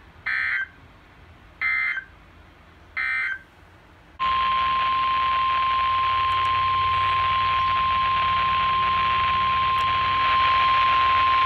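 NOAA Weather Radio alert: three short bursts of digital SAME header data tones about 1.3 seconds apart, then the 1050 Hz warning alarm tone, one steady tone held for about seven and a half seconds over radio hiss, announcing a severe thunderstorm warning.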